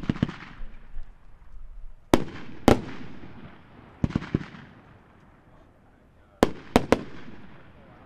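Dominator 'Sure Bet' 500 gram fireworks cake firing: about eight sharp bangs in irregular clusters of one to three, each trailing off.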